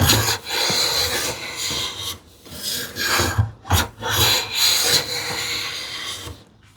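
Sharp hand plane cutting along the edge of an ash board in several long, even strokes with short pauses between, a hissing shaving sound typical of edge jointing.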